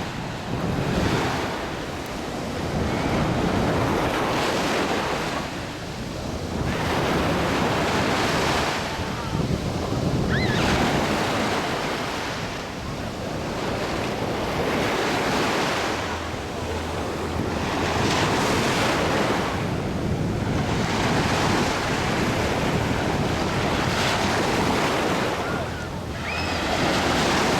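Sea waves washing onto the shore, swelling and ebbing every few seconds, with wind buffeting the microphone.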